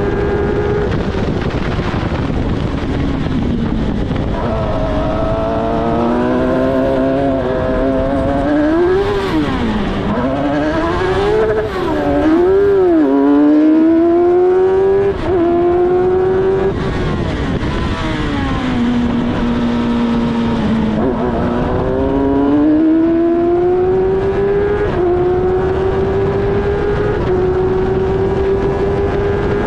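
F1000 single-seater race car's Suzuki motorcycle-derived engine at racing speed from the cockpit. The revs drop under braking and downshifts, wind up again through the gears and waver through a run of corners. Near the end they hold a high, steady note along a straight, with wind rush throughout.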